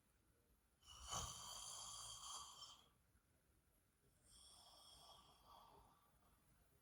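A sleeping woman snoring softly: two snoring breaths, the first louder and about two seconds long starting about a second in, the second fainter a little after four seconds, each with a thin whistling edge.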